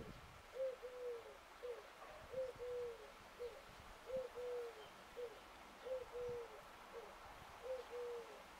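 A dove cooing: a repeated three-note call, a short note, a longer slightly falling note, then a short one, coming round about every two seconds.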